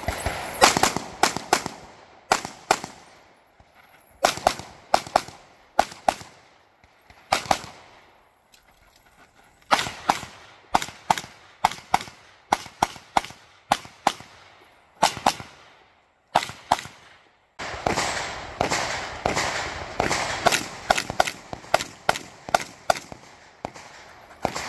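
Competition pistol (USPSA Open-division racegun) firing rapid shots in quick pairs and longer strings, with short pauses between strings where the shooter moves between positions.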